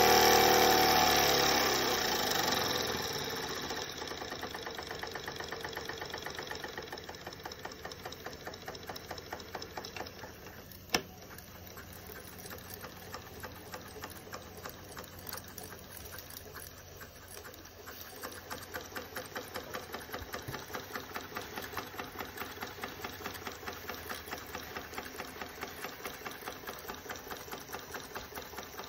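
Jensen 25GR toy steam engine running, its piston and flywheel going at a rapid, even beat. It is louder for the first couple of seconds, then settles to a steady, quieter running. There is a single sharp click about eleven seconds in.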